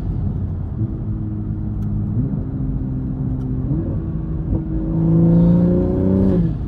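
2021 Toyota Supra's turbocharged 3.0-litre inline-six, running through a catless downpipe and single-exit exhaust, while driving: the engine pitch jumps up twice, then from about five seconds in it gets louder and rises steadily under acceleration before dropping off near the end.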